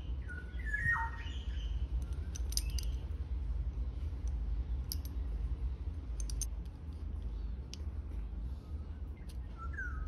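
Small birds chirping a few short gliding calls about a second in and again near the end, with light metallic clicks from a steel clevis and cotter pin being handled, over a steady low rumble.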